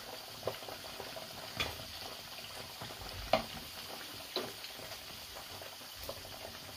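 Chicken drumsticks deep-frying in hot oil in a pan: a steady sizzle and bubbling. A metal slotted skimmer lifts the pieces out, with about five sharp clicks, the loudest a little past three seconds in.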